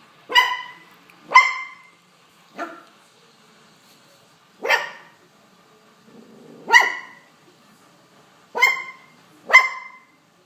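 Young poodle barking: seven short, high-pitched barks, spaced irregularly one to two seconds apart, the third one softer than the rest.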